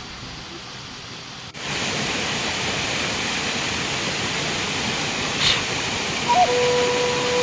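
Steady rush of falling water from a jungle waterfall, starting suddenly about a second and a half in after a quieter stretch. A steady held tone joins near the end.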